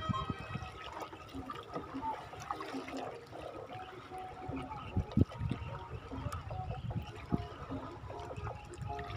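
Water trickling and dripping off a wet nylon cast net as it is gathered up in the hands for a throw. There is a louder knock about five seconds in.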